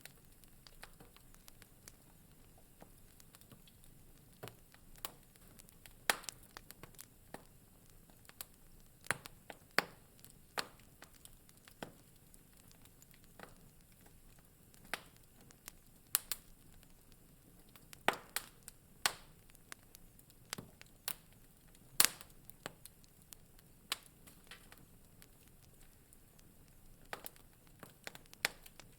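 Wood fire in a fireplace crackling: irregular sharp pops and snaps, a handful much louder than the rest, over a faint steady hiss.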